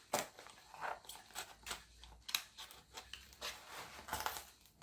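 Package of USB cables being picked at and handled while trying to lift open a flap that is stuck down: irregular light clicks, scrapes and rustles.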